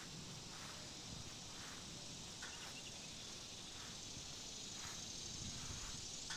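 Faint, irregular footsteps on concrete over a steady high-pitched outdoor hiss.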